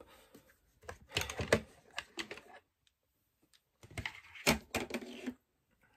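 Small plastic parts and packaging being handled and put back into a box: rapid clicks and knocks in two bursts, one about a second in and one about four seconds in.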